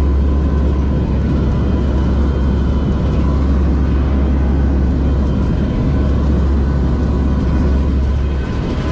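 Aircraft engines droning steadily inside the cabin of a hurricane-hunter plane flying through a hurricane: a loud deep rumble with a faint steady whine above it. The rumble eases a little near the end.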